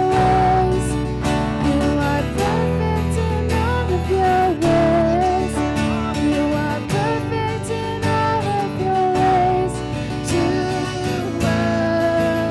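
Live worship music: strummed acoustic guitar with a voice singing the melody over it.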